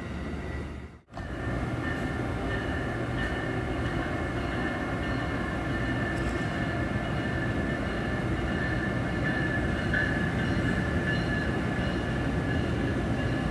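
Amtrak train running past with a steady rumble and faint high, steady whining tones, after a brief gap about a second in.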